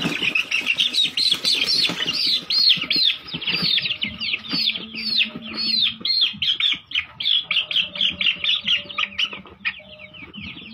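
Chicks peeping loudly and without a break, about four short falling cheeps a second. This is the distress peeping of a young chicken being held in the hand for vaccination.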